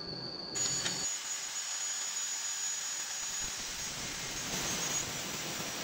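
Electric angle grinder with an abrasive disc, starting suddenly about half a second in and running with a steady high whine. From about four and a half seconds the noise grows fuller as the disc begins grinding steel.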